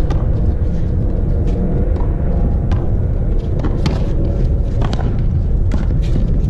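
Racquetball rally on an outdoor one-wall court: sharp cracks of the ball off racquets and the wall, about one a second, over a steady low rumble.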